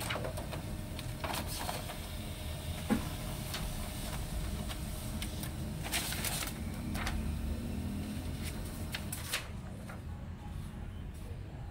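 HP LaserJet M26a laser printer running as it feeds and prints a page, a steady mechanical hum with scattered clicks and paper rustling from sheets being handled; the higher noise dies away near the end.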